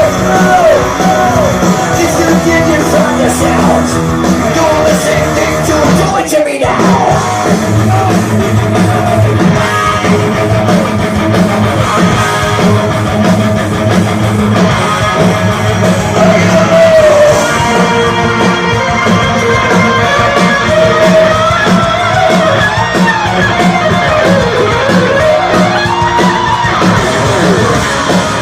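Heavy metal band playing live: distorted electric guitars, bass and drums with a singer's voice over them. The band drops out for a moment about six and a half seconds in, then comes back.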